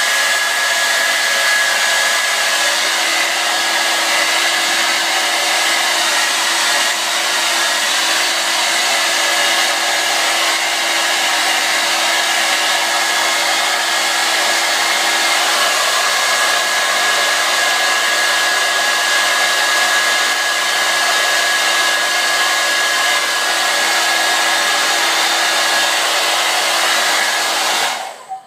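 Handheld hair dryer running with a loud, steady rush of air and a faint high whine over it; it switches off suddenly near the end.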